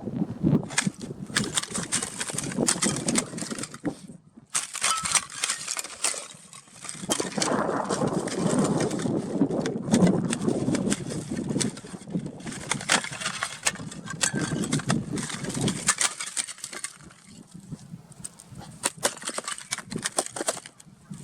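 A dense run of small, sharp clinks and tinkles that sound like broken glass, over a rushing noise that swells and fades.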